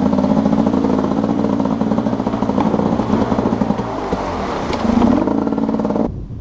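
Enduro motorcycle engine running at low revs as the bike descends a rocky stream bed, with a short rise in revs about five seconds in. The engine sound cuts off abruptly near the end.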